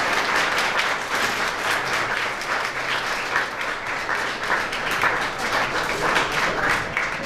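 Audience of students applauding: a dense, steady patter of many hands clapping, tapering slightly toward the end.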